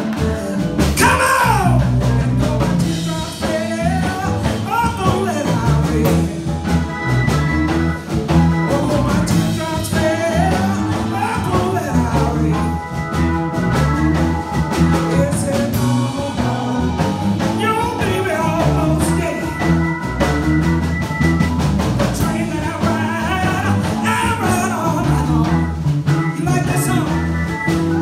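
A woman singing into a microphone with a live band, drums and bass keeping a steady beat under her voice.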